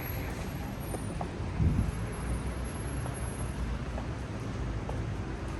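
Rainy city street ambience: a low traffic rumble under a steady hiss, with a brief low thump about a second and a half in.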